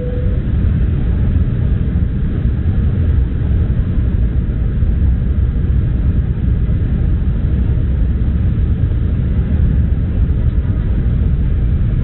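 Steady, even cabin rumble of a Delta Embraer 175 jet on approach: airflow and its twin GE CF34 turbofans heard from inside the cabin, low and unchanging.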